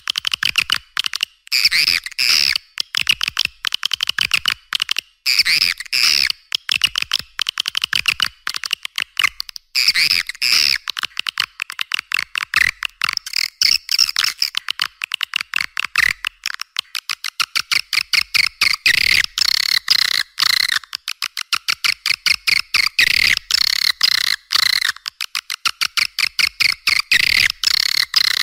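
Swiftlet lure recording: a continuous, rapid chatter of high, twittering chirps and clicks from swiftlets. This is the call played to draw swiftlets in to roost and nest.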